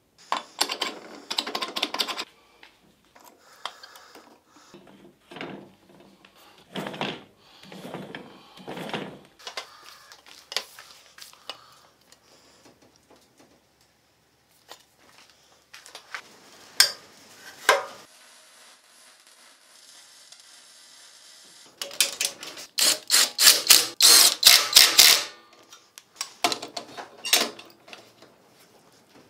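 Metal tools and parts being handled: scattered clicks and knocks, a short steady hiss, then a loud run of rapid clicking.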